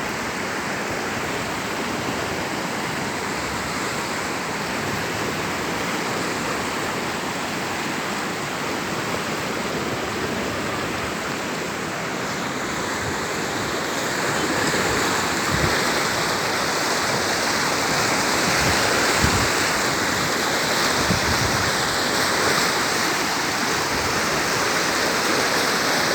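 River in flood rushing past steadily, growing louder about halfway through.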